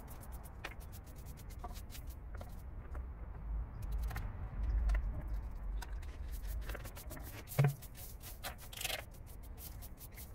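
Scattered light scrapes and clicks from hand work at the grave, one knock louder than the rest about three quarters of the way in, over a low steady rumble.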